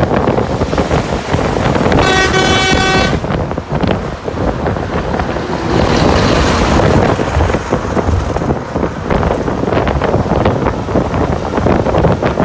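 A horn sounds once for about a second, about two seconds in, over heavy, continuous wind noise on the microphone.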